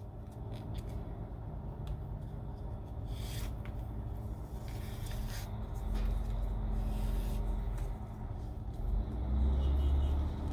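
A low steady rumble that swells a little about six seconds in and again near the end, with a few faint soft clicks and rustles of leather tefillin straps being threaded and pulled into a knot.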